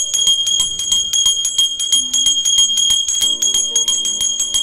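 A hand-held puja bell rung rapidly and without a break, about ten strikes a second, over a steady high ringing tone.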